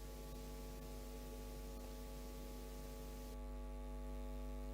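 Faint, steady electrical hum made of several fixed tones over light hiss, with no other sound.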